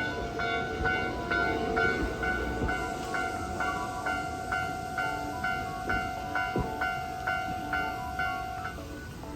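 Railway level-crossing warning bell ringing about twice a second over the low rumble of a train, with a steady high tone underneath; the bell and tone stop shortly before the end.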